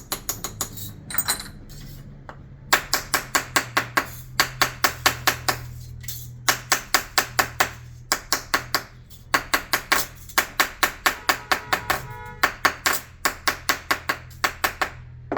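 Small hammer rapidly tapping a chasing punch into copper sheet, in runs of quick sharp metallic strikes about five or six a second, broken by short pauses. A steady low hum runs underneath.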